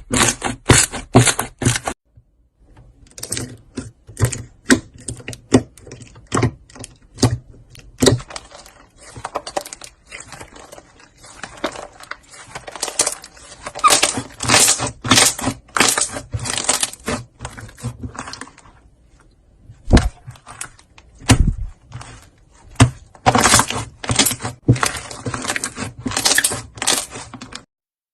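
Slime being squeezed and pressed by hand, with fast, irregular crackling and popping clicks that come in bursts and stop briefly now and then.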